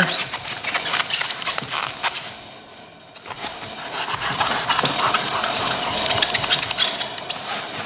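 Utility knife sawing through rigid foam board, a rapid scratchy rasping that pauses briefly about two and a half seconds in and then carries on.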